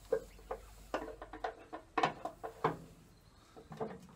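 Metal-on-metal knocks and clunks as a replacement water pump is worked into place on a tractor engine: a string of short, sharp knocks, the loudest about two seconds in.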